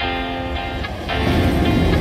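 Guitar music over a Class 37 diesel locomotive passing close: its English Electric engine and wheels make a low rumble that comes up loud about a second in.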